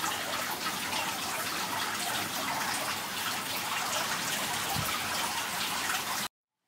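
Steady hiss of running, splashing water, with no single event standing out; it cuts off suddenly near the end.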